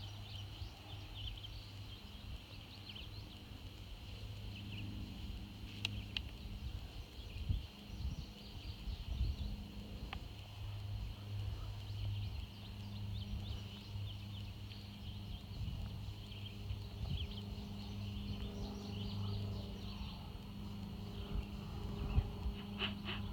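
Quiet outdoor trail ambience: a low steady rumble with many short, high chirps scattered throughout.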